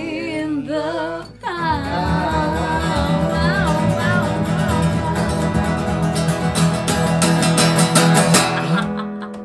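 A woman singing a folk song over strummed acoustic guitar and plucked upright double bass. The singing fades out and the guitar keeps strumming fast, then the music drops away to its last chord just before the end.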